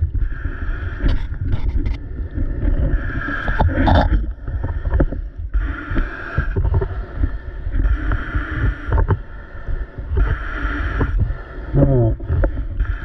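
Choppy river water sloshing and slapping against a camera held at the surface, with wind buffeting the microphone. A diver's breathing hisses in and out about every two and a half seconds.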